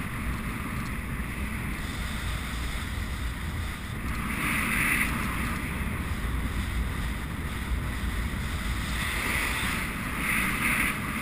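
Wind rushing over a helmet-mounted camera's microphone on a galloping racehorse, a steady rumbling buffet that surges louder about four seconds in and again near the end.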